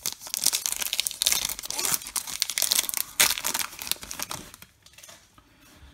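The foil wrapper of a 2021 Topps Chrome Update baseball card pack being torn open and crinkled by hand, with one sharp loud crackle about three seconds in. The crackling dies down after about four and a half seconds.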